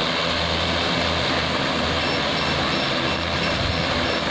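Large multirotor drone's propellers spinning with a steady whir and low hum as it lifts off the ground.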